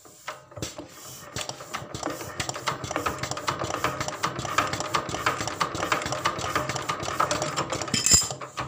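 Single-cylinder diesel engine turning over with a fast clattering rhythm that grows louder, tried out after its fuel injection pump, which was not delivering diesel, had its clogged delivery valve cleaned and refitted.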